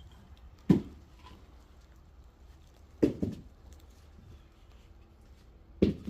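Heavy knocks of firewood pieces landing: one about a second in, a doubled knock around three seconds, and one more near the end.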